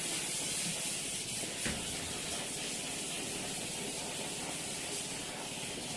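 A steady, even hiss, with a single faint tap about a second and a half in.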